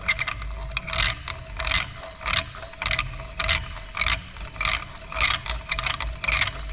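Hand-cranked piston ring filer, its abrasive cutting stone grinding the end of a piston ring, rasping with each turn of the crank a little under twice a second. This is the ring end gap being filed open to size.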